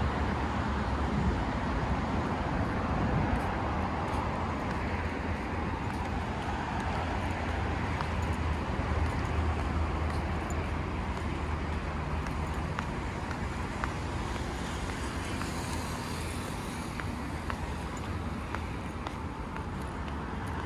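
Steady outdoor city noise: a hum of road traffic with a low rumble underneath and no distinct events standing out.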